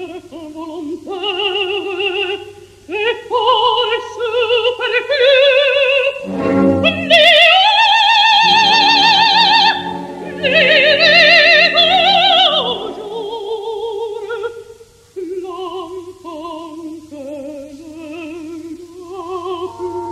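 Classical soprano singing an operatic aria with a wide vibrato, in separate phrases. She climbs to long, loud high notes about a third of the way in, then sings softer and lower, over a quiet sustained accompaniment.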